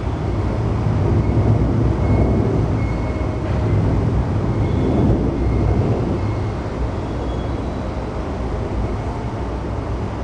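An MTR East Rail Line electric multiple unit passing close by at speed: a steady rumble of wheels on rail. It is loudest in the first half and eases slightly toward the end.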